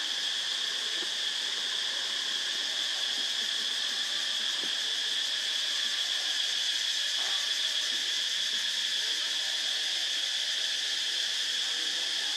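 A steady, high-pitched insect chorus drones without a break, with a few faint knocks and rustles beneath it.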